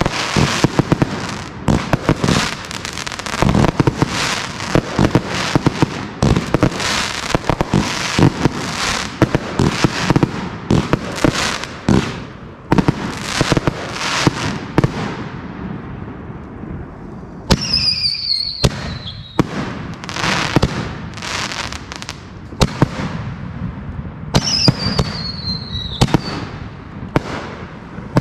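Consumer aerial fireworks firing in a rapid barrage of bangs and crackling bursts, which thins out after about fifteen seconds. Twice in the second half a whistle falls in pitch over a second or so.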